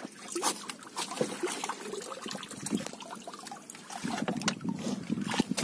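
Water trickling and splashing, with scattered knocks and rustles of a fish trap and rope being handled in a boat.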